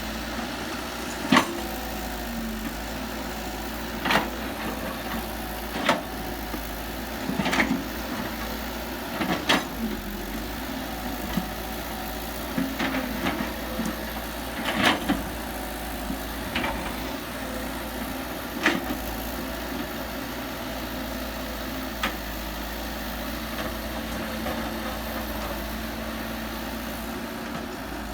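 Heavy earthmoving machinery engine running steadily, with about eight sharp knocks or clanks at irregular intervals, mostly in the first two-thirds.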